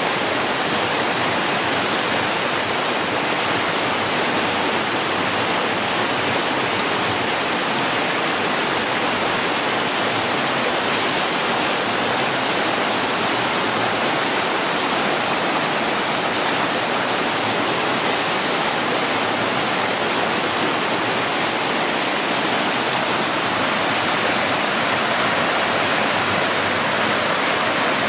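River water rushing over rocks in shallow rapids: a steady, even rush of water.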